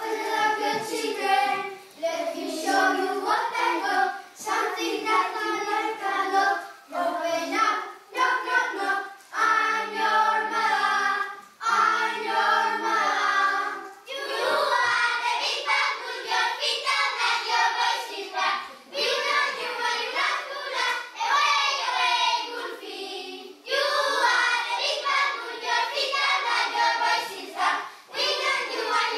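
A group of young children singing a song together, line by line with short breaths between phrases.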